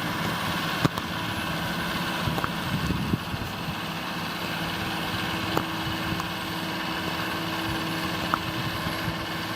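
John Deere 7930 tractor's six-cylinder diesel engine running steadily, with a few sharp clicks, about a second in and again about five and a half seconds in.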